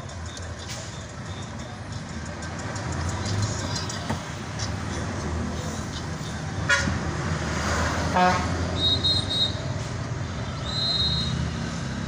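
Vehicle engine running steadily while driving in city traffic, with short car-horn toots about seven and eight seconds in. Three short high-pitched tones follow near the end.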